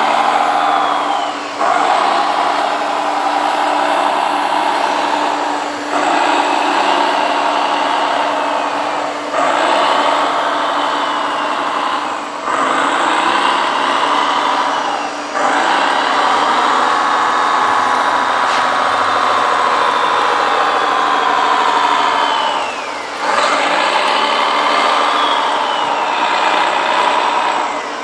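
Radio-controlled construction truck running, an engine-like motor sound whose pitch falls and rises again, dipping briefly every few seconds as it slows and speeds up.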